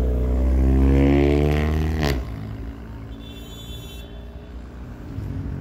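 A motor vehicle's engine accelerating, its pitch rising for about two seconds before it falls away suddenly after a sharp click, over a low rumble.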